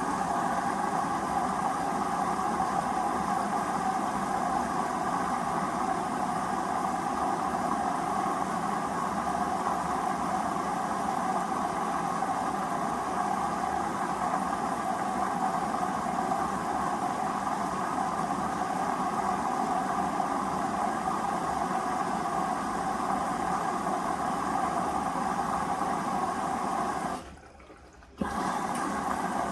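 Hoover Vision Dynamic washing machine running steadily mid-cycle, a constant whooshing hum. It cuts out for about a second near the end, then resumes.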